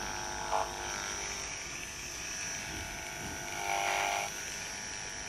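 Cordless electric horse clippers running with a steady high whine while cutting a pony's mane hair at the bridle path, a low-noise model; slightly louder for a moment about four seconds in.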